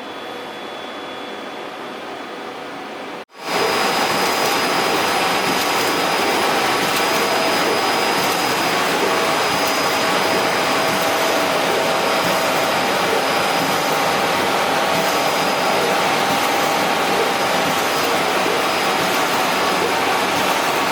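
Ricoh Pro C7500 production colour printer running, a steady machine noise with faint steady tones. After a brief cut about three seconds in it turns louder and stays even.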